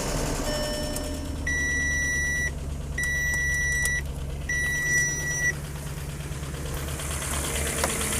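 Audi A8 engine idling with a steady low hum, freshly fitted with a new drive belt, water pump and tensioner, its droning whine gone. Three long electronic beeps, each about a second, sound from the car in the first half.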